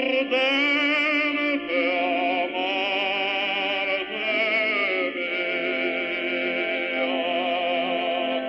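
Background music with a singing voice holding long notes with strong vibrato, each note changing every second or two.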